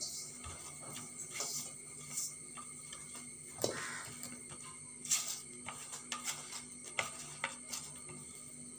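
Hands mixing pieces of raw pappadam into a wet chilli paste on a plate: irregular crackles and clicks as the brittle pieces are worked and fingers tap the plate.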